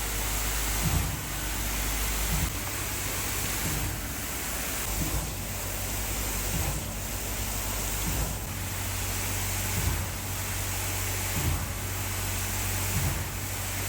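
Concrete pump running steadily, with a low thud about every one and a half seconds as it pushes concrete through the hose, over a steady engine hum.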